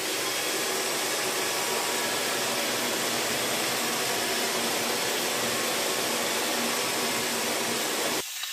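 Roomba robot vacuum running with a steady whirring hum of its motor and brushes, cutting off abruptly near the end.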